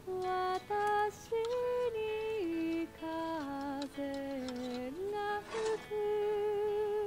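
Slow, gentle background music: a single melody line of held notes stepping up and down, with short breaks between phrases.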